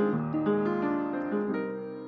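Background piano music, its notes changing every fraction of a second and fading slightly toward the end.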